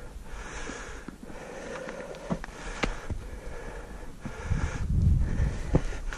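A hiker breathing hard from the exertion of scrambling up a steep granite slope, with scattered sharp clicks of boots and hands on rock. Near the end, wind starts buffeting the microphone with a low rumble.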